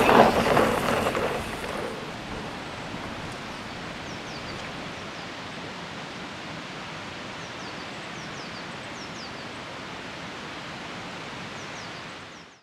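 Music fading out in the first two seconds, then steady outdoor rushing ambience with a few faint, high, falling bird chirps. It cuts off suddenly near the end.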